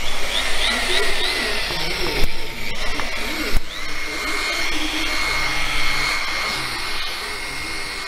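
Hand-held electric rotary sander-polisher running with a steady motor whine as its pad is worked over a painted plastic Honda Fit front bumper, taking off dirt and small scratches. Two sharp knocks come about two and three and a half seconds in.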